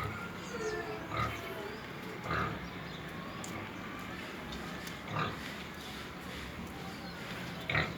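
Pigs grunting and calling over a steady din of many animals, with four short loud calls standing out: about a second in, around two and a half seconds, around five seconds, and near the end.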